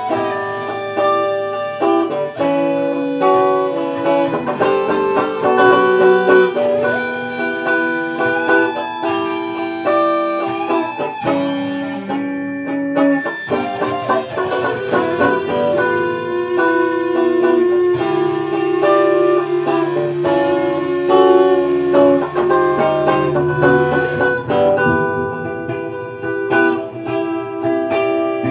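Guitar played live, a run of plucked notes and chords that rings on steadily.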